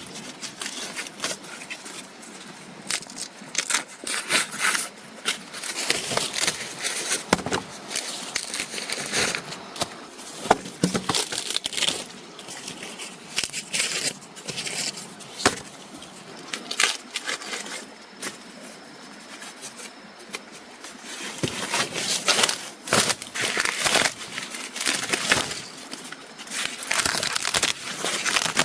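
Irregular crackling and crunching, a dense run of crisp snaps and rustles like dry plant material being handled or trodden on.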